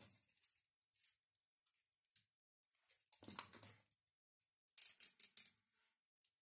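Faint, brief rustles and scrapes of hands handling paper and a pencil on a wooden tabletop, in four short bursts.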